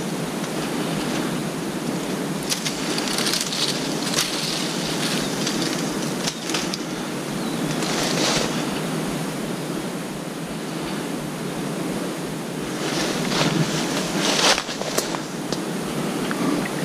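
A steady rushing hiss of outdoor background noise, with a few brief louder rustles scattered through it.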